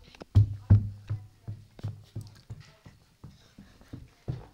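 Footsteps thudding indoors, a steady run of about three dull steps a second, the first two the loudest.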